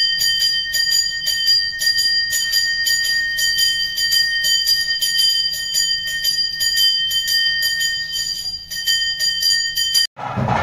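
Hand-held temple ritual bell (ghanta) rung continuously, its clapper striking about four times a second over a steady ringing tone, during a fire offering. It stops abruptly near the end as music with drumming cuts in.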